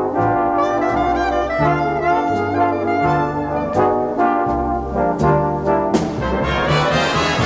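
Background music led by brass, with a bass line and percussion.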